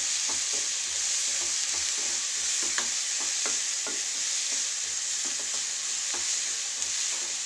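Chopped onions sizzling in hot oil in a nonstick kadai, being sautéed soft, with a steady hiss and a spatula scraping against the pan in irregular strokes as they are stirred.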